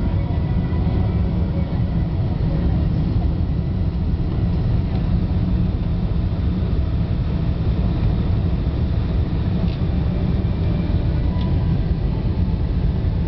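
Steady low roar inside the cabin of a Boeing 747-400 on approach with flaps extended: engine and airflow noise heard through the fuselage.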